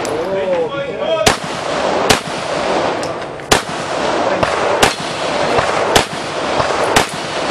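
Pistol fired at targets in single shots: six sharp reports, one every second or so.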